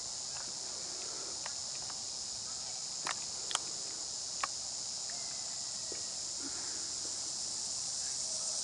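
Steady high-pitched insect chorus, with a few short sharp clicks near the middle.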